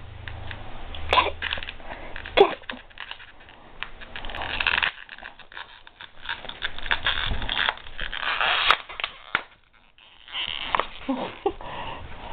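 A pitbull puppy jumping and biting at a furry toy on bed covers: irregular rustling and scuffling, with many quick knocks and a couple of brief higher-pitched sounds in the first few seconds.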